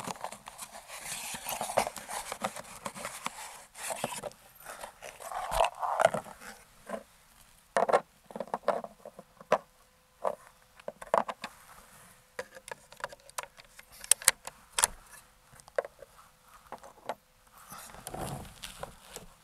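Irregular small clicks, taps and light metallic clatter from handling the air rifle and its slugs at the shooting bench, with a few short rustles.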